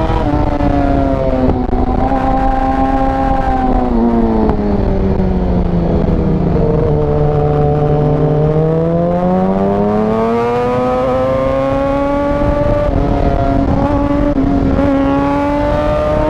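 Yamaha R6 inline-four engine under way, its pitch easing down over several seconds to a low point about seven or eight seconds in, then climbing back up and holding high near the end, over a steady rush of wind.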